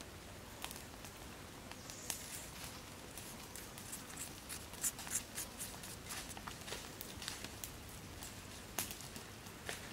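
White seasoning granules sprinkled over raw sliced beef and vegetable on a plate: a faint, irregular patter of tiny ticks, a little denser about halfway through.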